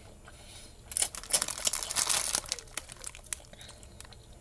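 Plastic instant ramen noodle packet crinkling as it is handled: a burst of dense crackling from about a second in to about two and a half seconds, then a few scattered crackles.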